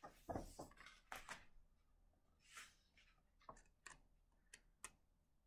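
A book page being turned and handled: a few faint, soft paper rustles, then several small taps.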